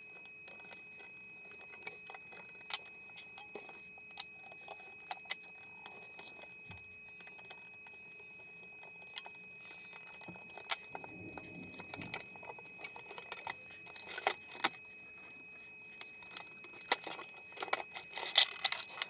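Small metallic clicks, taps and scrapes of a screwdriver working at screws inside a stereo receiver's metal chassis. The ticks come irregularly, with a few sharper clacks near the end.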